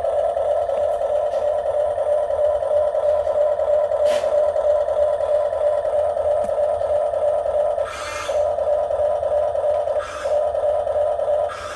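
Small electric motor of an RC excavator whining steadily at one pitch, easing off briefly twice in the last few seconds, with a single short click about four seconds in.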